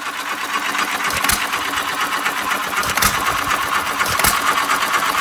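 1925 John Deere 1.5 horsepower spark-plug-ignition hit-and-miss engine running, a fast steady clatter broken by a sharp pop every second and a half or so as it fires.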